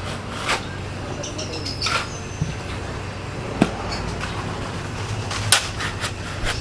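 Steel shovels scraping and knocking into a wet heap of gravel, sand and cement as concrete is mixed by hand: a few sharp strokes a second or two apart, over a steady low hum.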